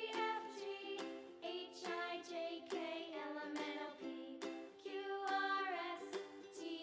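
Children's song music: a bright instrumental melody with notes struck at a steady, regular pace.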